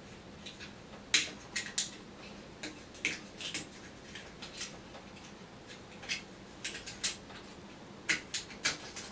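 Irregular sharp clicks and light clatter from hands working at the edge of a plasma display panel, with its high-voltage supply unplugged, so no arcing. The loudest click comes about a second in, with another cluster near the end.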